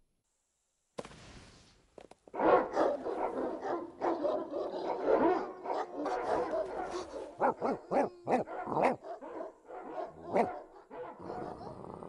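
A pack of dogs barking, many barks overlapping, starting about two seconds in and thinning out near the end.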